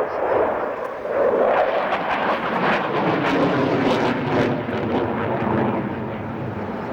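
Jet aircraft flying a display pass: a loud, continuous engine roar whose tone shifts and sweeps as the aircraft moves past.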